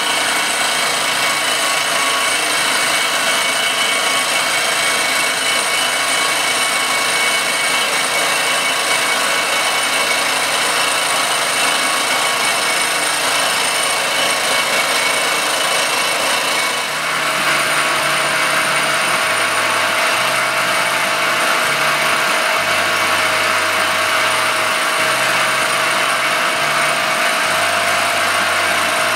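Circa-1948 Gorton 8-1/2D vertical milling machine face-milling an aluminum casting: a steady whine of several high tones over the hiss of the cut. About 17 seconds in, the sound dips briefly and then settles into a slightly different pitch.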